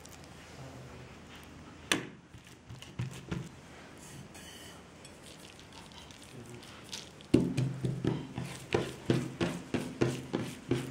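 Hands rolling and working a folded sheet of bread dough on a wooden table: a steady run of soft thumps, about three a second, starting about seven seconds in. A single sharp knock about two seconds in.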